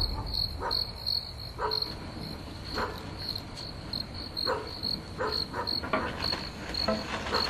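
Crickets chirping in an even, repeating rhythm of about three to four short high chirps a second, with scattered soft knocks.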